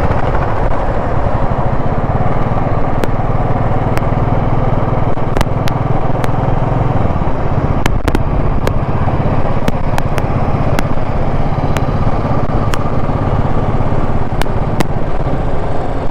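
Motorcycle engine running steadily at highway cruising speed, with wind and road noise rushing over the microphone and a few faint clicks.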